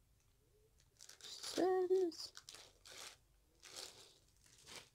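Clear plastic wrapping crinkling and rustling in short bursts as items are handled in it, starting about a second in. A brief voice-like sound is heard about one and a half seconds in.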